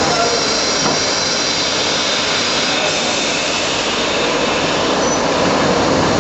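Traub A25 automatic lathe with its bar-feed automation running: a steady, even mechanical noise.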